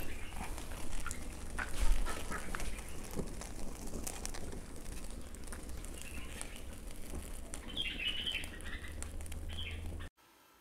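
Caged birds chirping over a charcoal fire burning in a brick grill pit, with scattered crackles and knocks as the coals are poked with a wooden stick, and a thump about two seconds in. The sound cuts off suddenly near the end.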